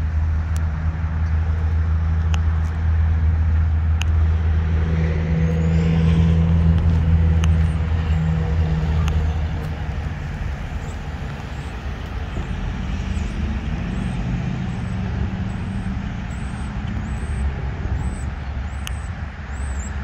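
Chevrolet Silverado Trail Boss V8 idling with a steady low exhaust rumble. The tone shifts slightly about halfway through.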